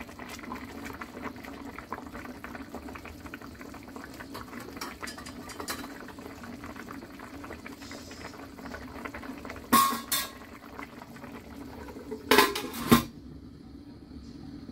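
Pork and preserved vegetables simmering in a stainless-steel wok, a steady bubbling. There is a sharp metal clank about ten seconds in, then the metal lid clatters onto the wok near the end, after which the bubbling is muffled.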